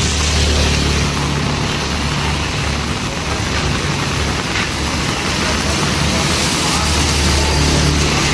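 Heavy rain falling on a wet street, with the low hum of cars and motorbikes going by on the wet road; a motorbike passes close near the end.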